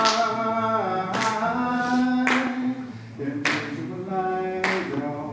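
Voices singing a slow song with held notes, with a sharp clap about once a second keeping the beat.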